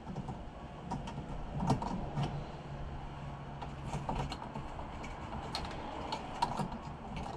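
Scattered light clicks and scrapes of plastic parts being handled as a new fuel pump is set into the fuel tank's locking groove.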